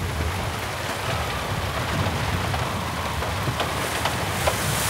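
Wind-driven hurricane rain: a steady hiss with a low rumble of wind underneath, the hiss swelling near the end.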